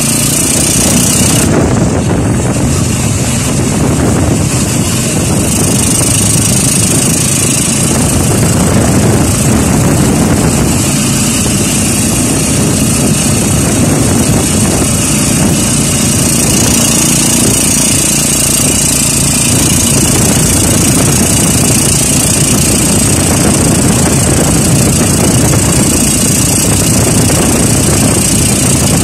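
Motorcycle tricycle's Kawasaki engine running steadily while under way, heard from inside the sidecar, with road and wind noise.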